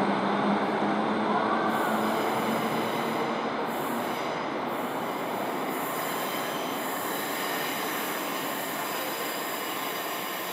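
A two-car diesel multiple unit pulling out of the station, its diesel engine and wheels on the rails rumbling with a faint high wheel squeal. The sound slowly fades as the train draws away.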